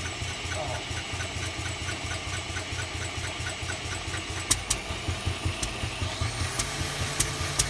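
Single-cylinder Lister D stationary engine being spun over by a belt-driven electric starter motor, a steady rhythmic chugging that grows sharper and faster in the second half. The petrol tap is off, so the engine is being cranked without fuel and does not catch.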